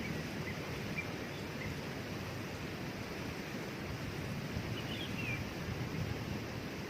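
Steady rushing of a waterfall, with a few faint, short bird chirps in the first two seconds and again about five seconds in.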